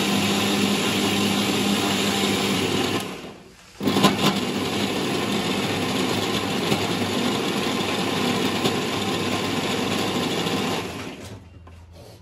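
Electric kitchen mixer grinder running at speed, grinding tomatoes into paste. It stops for under a second about three seconds in, runs again for about seven seconds, then switches off and winds down near the end.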